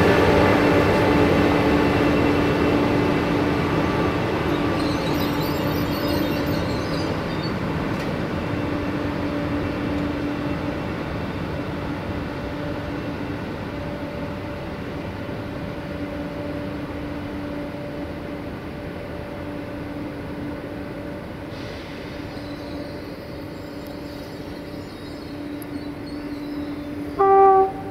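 Softrans Hyperion electric multiple unit pulling away along the platform: a steady electric whine from its traction drive over running noise, fading as it draws off. A short horn toot sounds near the end.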